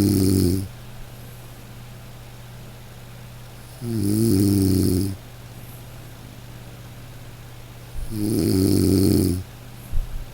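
A sleeping person snoring in a slow, even rhythm, one snore about every four seconds, each a rasping inhalation of about a second and a half, over a steady low hum. Two short clicks come near the end.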